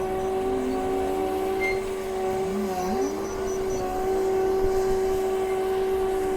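Komatsu WA500 wheel loader working: a steady high whine runs over the engine rumble, with short swoops in pitch a few times as the machine changes load.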